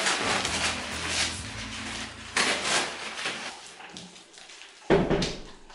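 Paper masking rustling and crinkling as it is pulled off a ceiling light fitting, with a sudden louder crumple near the end.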